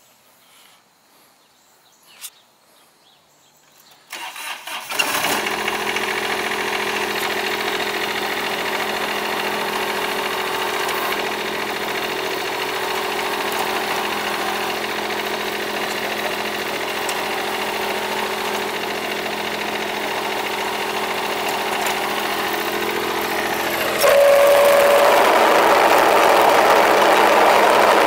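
Kubota D1105-E three-cylinder diesel of a Ransomes Frontline 728D mower cranked briefly and starting about four seconds in, after a single click, then idling steadily. About twenty-four seconds in it becomes suddenly louder and stays so.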